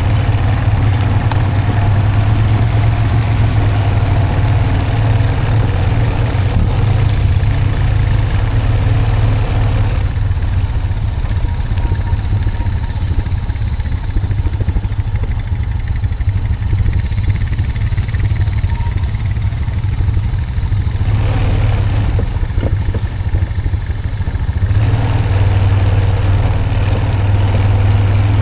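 Honda Foreman 520 ATV's single-cylinder four-stroke engine running as it tows a log skidding arch downhill. The engine is fuller for the first ten seconds or so, eases off through the middle, and picks up again near the end.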